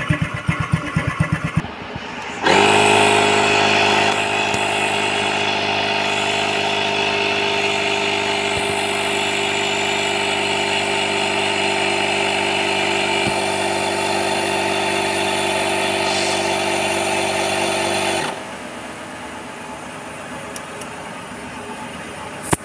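An AGARO 120 W portable digital tyre inflator's compressor starts abruptly about two and a half seconds in. It runs with a steady, many-toned hum for about sixteen seconds while pumping up a scooter tyre, then shuts off suddenly, stopping by itself at the set pressure. Beneath it, a scooter engine idles.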